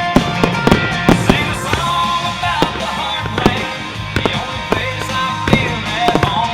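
Consumer fireworks bursting in an irregular string of sharp reports, the loudest in the first second and a half, over a loud rock music soundtrack.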